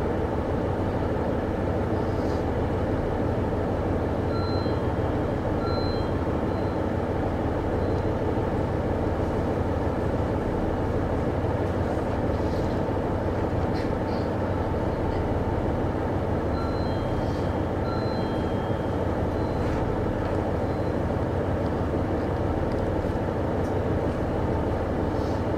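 KiHa 75 series diesel railcar idling at a standstill: a steady, even engine hum with no change in speed.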